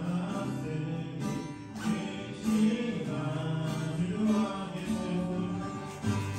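Live church praise band playing a worship song: several voices singing together over acoustic guitar.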